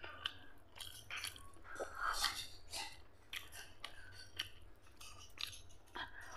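Close-up eating by hand: fingers squishing and mixing rice into mutton fat curry on a paper plate, and chewing of the soft food. Heard as a string of soft, irregular wet clicks and squelches.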